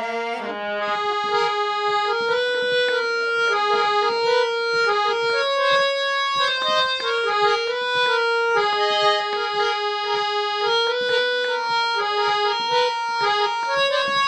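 Hand-pumped harmonium playing a melodic instrumental interlude of a bhajan: held reedy notes moving from one pitch to the next with no singing, after the last sung note fades at the very start.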